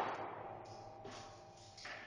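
Echo of a Glock 22 .40 pistol shot dying away in an indoor range over about half a second, leaving a faint, hushed gap between shots. A soft knock comes near the end.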